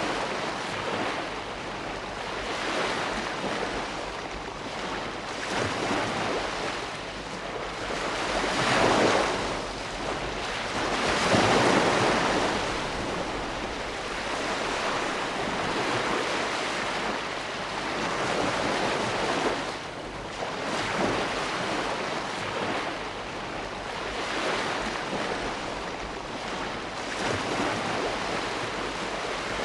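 Ocean waves breaking and washing on a shore: a steady surf hiss that swells every few seconds, with the largest breakers about nine and twelve seconds in.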